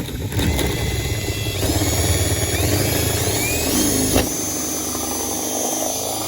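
Electric drill boring through a carbon fiber and fiberglass hood. The motor's pitch climbs over the first few seconds, drops suddenly about four seconds in as the bit loads or breaks through, then runs steadily.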